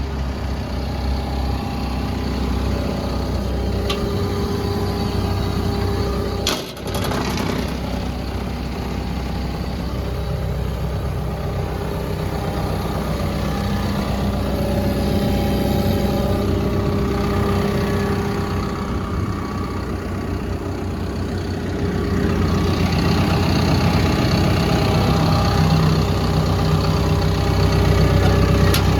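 Caterpillar D5K2 XL bulldozer's diesel engine idling steadily, getting somewhat louder about three-quarters of the way through.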